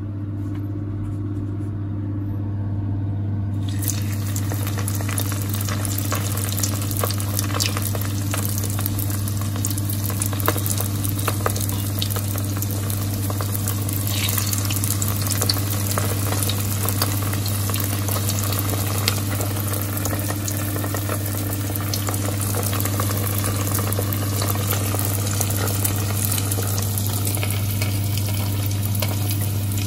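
Spring rolls deep-frying in a pot of hot oil: a steady crackling sizzle that starts about four seconds in and keeps going. A steady low hum runs underneath throughout.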